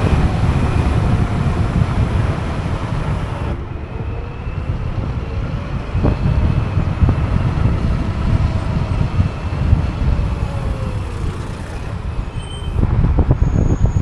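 Wind buffeting the microphone of an electric scooter in motion, with a faint whine that rises and then falls in pitch over several seconds.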